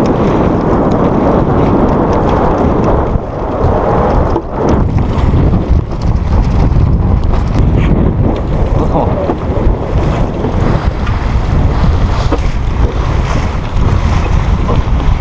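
Wind buffeting the microphone, with water rushing and splashing along the hull of a small sailboat under sail.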